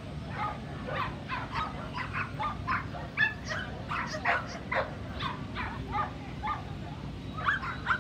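Dogs barking and yipping, short overlapping barks of different pitches several times a second, over a steady low background noise.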